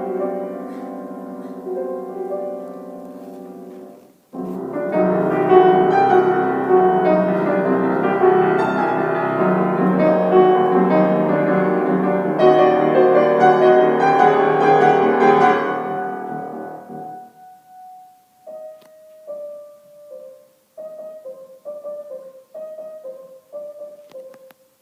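Solo piano. A held chord dies away, then after a short break comes a long loud passage of dense chords that fades out about two-thirds of the way through. It closes with soft single notes repeated in the middle range, with pauses between them.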